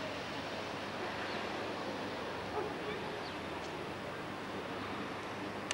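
Steady outdoor city background noise, a low even hiss, with a few faint short chirps.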